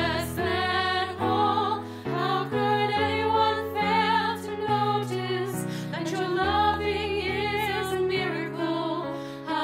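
Three women singing a slow song together in harmony over a sustained instrumental accompaniment of held chords.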